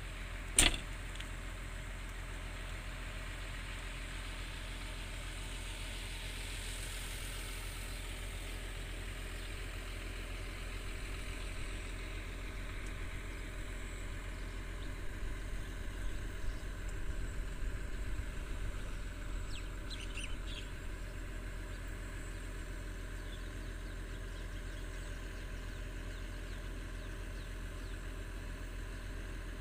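Heavy diesel excavator engines idling with a steady low drone that swells briefly in the middle. A sharp click about half a second in, and a few bird chirps about twenty seconds in.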